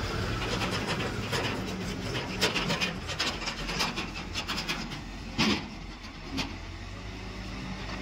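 An Escorts Digmax backhoe loader's diesel engine runs while a bucketful of soil and stones is dumped into a steel tractor trolley, the clods clattering against the trolley bed. A single heavy thud comes about five and a half seconds in.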